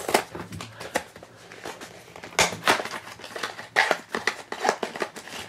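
Small cardboard blind box being opened by hand: an irregular run of sharp clicks, taps and scrapes as the cardboard flaps are pried and torn open.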